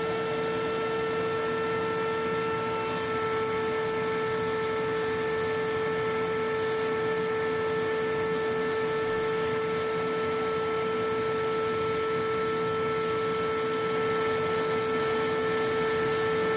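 A vacuum running steadily with a high whine over a hiss, sucking up meltwater as frost is steamed off a refrigerator's evaporator coil.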